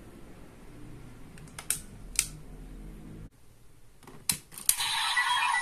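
Sharp plastic clicks as toy Raise Buckles are handled and one is snapped into a DX Desire Driver toy belt, a few early on and two more near the end. Just before the end, the belt's electronic sound effects start playing.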